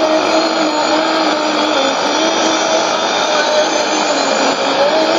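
Sony ICF-2001D shortwave receiver tuned to 13650 kHz AM, giving out a steady hiss of static with a faint tone underneath that wavers slowly in pitch; no clear programme audio comes through the noise.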